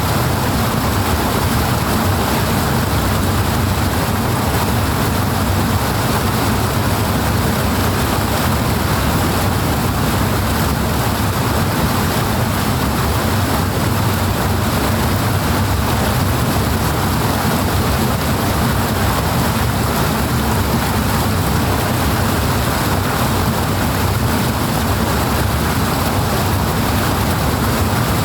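Water rushing steadily, a dense, even noise at a constant level with no breaks.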